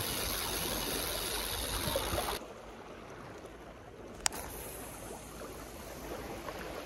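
Sea water washing and trickling against a seawall, louder for the first couple of seconds and then softer, with a single sharp click about four seconds in.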